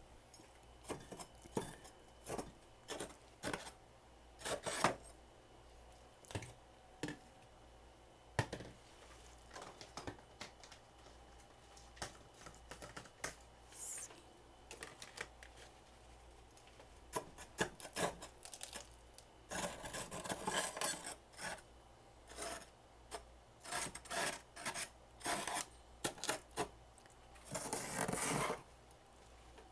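Crisp crunching and scraping of freezer frost as it is eaten close to the microphone, in irregular bursts with denser runs about twenty and twenty-eight seconds in.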